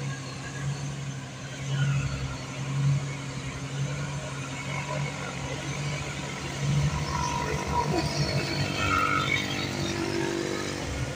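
Mitsubishi Fuso cargo truck's diesel engine running under load as the truck pulls slowly up a steep climb: a steady low drone that swells and eases about once a second, with road noise from passing traffic.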